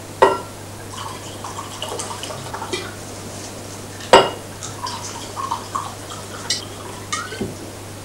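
Red wine poured from a glass bottle into two stemmed wine glasses, the liquid gurgling in short runs. Two sharp clinks of glass come about a quarter second in and just after four seconds, with lighter tableware clatter between them.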